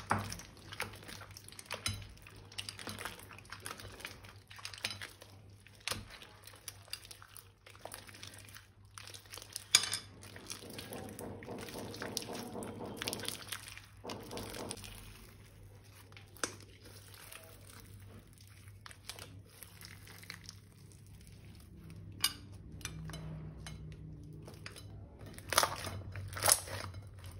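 Slime and plastic piping bags being handled and mixed: scattered clicks, taps and crinkling, with a few sharper taps, one about ten seconds in and two near the end.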